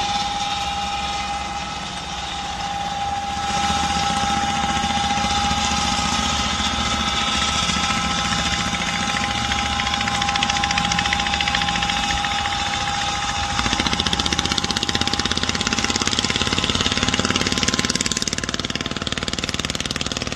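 Engine of a rice-husk cargo boat running steadily with a rapid chugging, growing louder about two-thirds of the way through. A steady whining tone rides over it and fades near the end.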